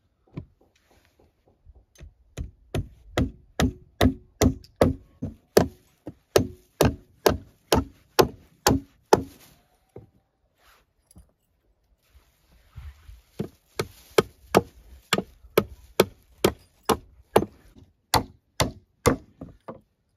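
Hammer driving nails into wooden planks, struck in two runs of steady blows, about three a second, with a pause of a few seconds midway.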